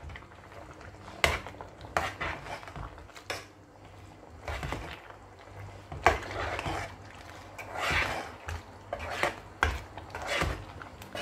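A metal ladle stirring thick cocoyam porridge in a cooking pot, scraping through the stew and knocking irregularly against the pot's side and bottom about once a second.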